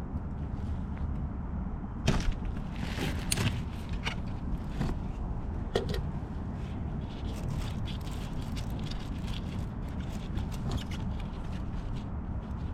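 Scattered clicks, knocks and rattles of tools and parts being handled during scooter maintenance, over a steady low rumble, with a few sharper knocks about two, three and six seconds in.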